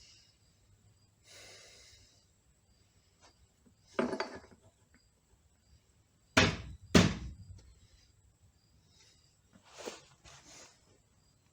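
Four heavy knocks: one about four seconds in, two loud ones close together in the middle, and a lighter one near the end. They come from working a stuck front pump loose from a C6 automatic transmission case.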